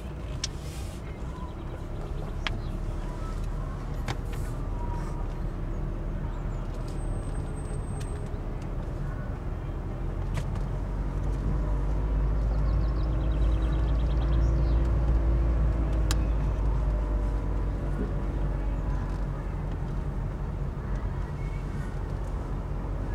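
Car interior noise while driving slowly: a steady low engine and tyre rumble heard inside the cabin, swelling louder for a few seconds around the middle.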